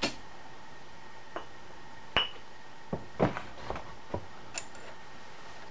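Small steel tools clinking and tapping against the metal mill table and vise as they are picked up and handled: about seven short clicks, one about two seconds in that rings briefly with a high ping.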